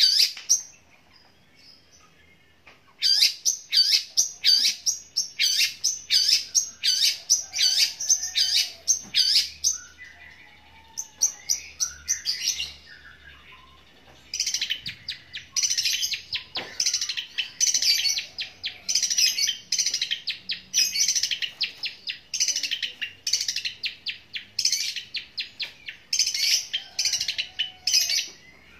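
Caged long-tailed shrike (cendet) singing loudly: rapid runs of harsh chirping notes in the style of a tree sparrow, in long bouts broken by a couple of short pauses.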